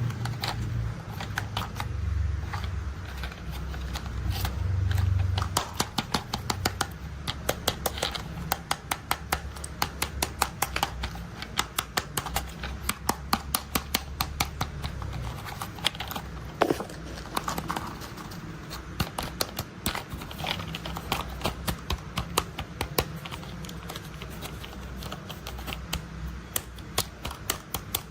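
Toy construction vehicles being handled: dense, irregular clicking and tapping, several clicks a second, with a low rolling rumble in the first five seconds or so.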